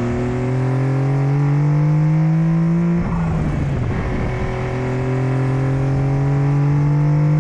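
Turbocharged Honda Beat's three-cylinder MTREC engine pulling under load, its pitch rising steadily. About three seconds in there is a short break and drop in pitch as it shifts up, then it climbs again.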